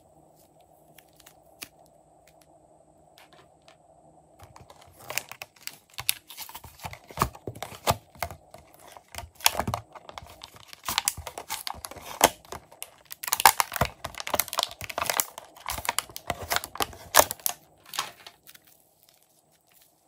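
Clear plastic packaging of blue clay sticks being handled, a long run of sharp crinkling and crackling that starts about five seconds in and stops about two seconds before the end. Before it, only faint soft squishing of fluffy slime with a few small clicks.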